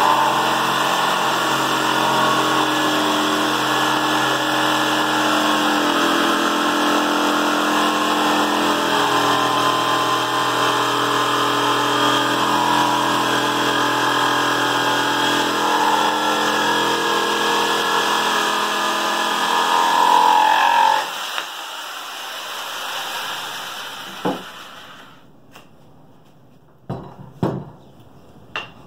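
Electric jigsaw cutting a curved line through a wooden board, its motor and reciprocating blade running steadily for about twenty seconds, then switched off and winding down. A few short knocks follow near the end.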